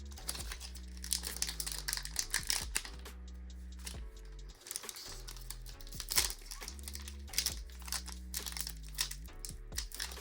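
Foil booster pack wrapper crinkling and rustling in the hands, with many short crackles, over background music with held low notes.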